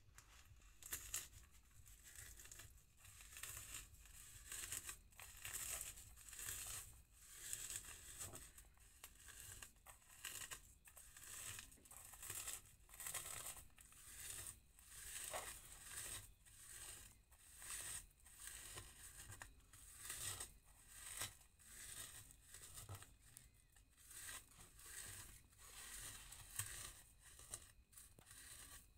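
Fingers crushing dried red chillies and salt against a plate, a faint gritty rasp repeated in a steady rhythm of a little more than one stroke a second.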